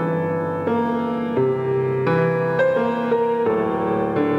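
Recorded intro music on piano: slow sustained notes and chords, moving to a new note every half second or so.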